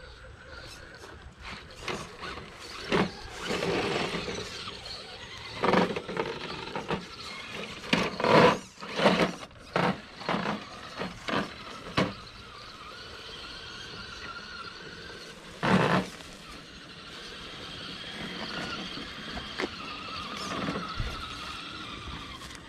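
Enduro Trail Walker RC crawler truck's electric motor and gears whining, the pitch rising and falling with the throttle as it crawls over logs and rocks. A run of loud knocks and clatters comes over roughly the first half, with one more a little past the middle.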